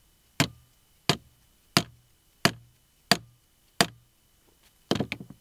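A mallet striking an AR's FG-15 trigger-crank grip as it rests on a wooden tabletop: six sharp blows about two-thirds of a second apart, then a short rattle of lighter knocks near the end. The blows are an impact test of whether the crank jars out of its neutral position into fire.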